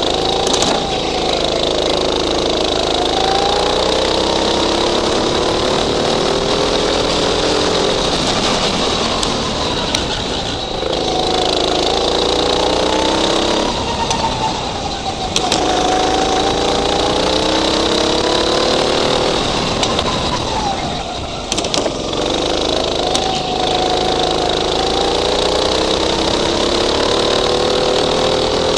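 Go-kart's small engine heard from on board, climbing in pitch under throttle for several seconds, then dropping away as the driver lifts off for a corner, three times over. A steady high whine runs over it.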